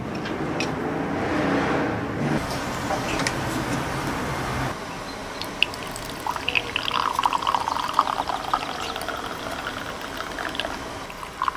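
Turkish tea poured from a copper teapot into a tulip-shaped glass: a thin stream splashing into the tea as the glass fills, starting about five seconds in. Before that there is a steady rushing noise.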